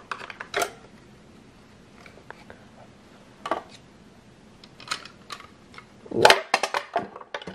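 Clicks and knocks of a handheld blender being taken apart: the plastic housing halves and the metal motor handled and set down on a wooden board. The loudest is a quick cluster of knocks about six seconds in.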